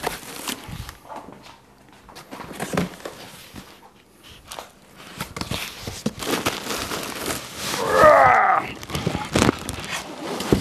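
Cardboard box flaps being opened and handled, with rustling and scraping of packing material as the contents are pulled about; about eight seconds in comes a louder, squeaky scrape.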